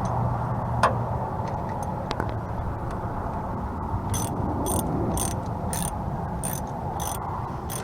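Socket ratchet wrench clicking as a brake caliper bolt is turned: a row of short ratcheting clicks, about two a second, starting about four seconds in and stopping shortly before the end, over a steady background hum.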